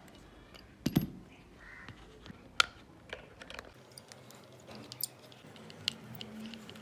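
Scattered light clicks and knocks of a handheld torch light being taken apart by hand, with a sharper knock about a second in and another a little before the middle.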